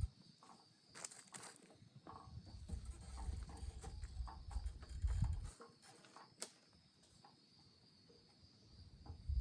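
Outdoor campfire ambience: a steady high insect trill, with scattered small crackles and clicks and bursts of low rumble that come and go, one ending about five and a half seconds in.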